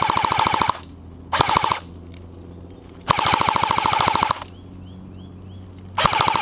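Airsoft electric rifle firing full-auto in four short bursts of rapid clicking: a rattle of shots with the gearbox whirring under them. One burst stops just after the start, a short one follows about a second later, a longer one comes near the middle, and another begins near the end.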